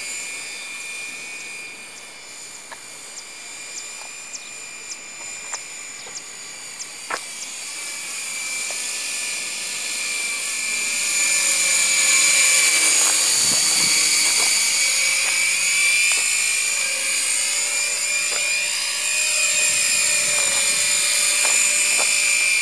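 Electric radio-controlled Walkera 4F200LM scale helicopter in flight, its motor and rotors giving a steady high whine. The whine grows louder about halfway through as the helicopter comes nearer, and its pitch sweeps up and down as it passes. A run of light ticks comes in the first several seconds.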